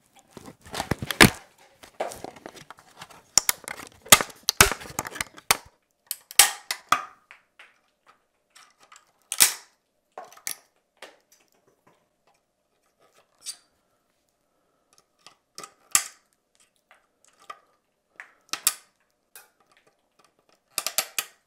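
PLA support material being snapped and pulled off a 3D-printed mask by hand. A quick run of sharp cracks and crackles for about six seconds, then scattered single snaps.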